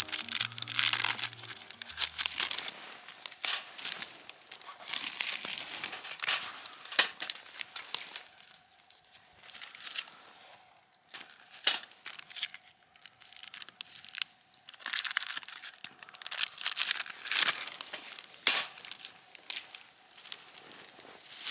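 On-and-off crinkling and rustling, broken by many sharp clicks.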